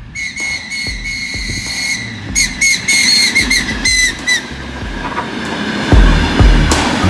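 Train whistle blowing: one long blast of about two seconds, then five or six short toots, over the low rumble of the moving train. About six seconds in, a heavy low pulsing beat of music starts.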